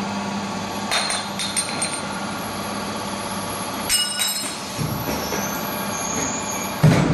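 Wire-forming and welding machine running: a steady hum with a series of sharp clicks and clacks, and a louder knock near the end.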